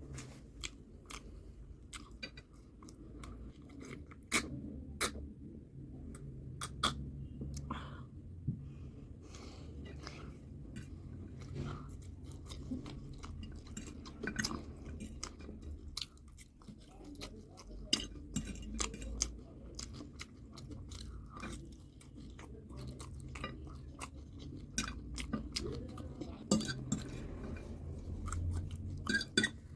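Close-miked chewing and crunching of food, with many short sharp mouth clicks.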